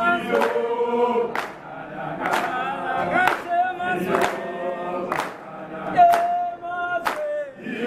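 A crowd singing together in chorus, clapping their hands in time about once a second.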